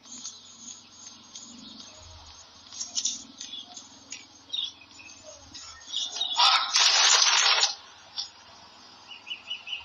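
Small birds chirping in short high calls, with a quick run of chirps near the end. A loud hissing, rushing noise lasts about a second around the middle.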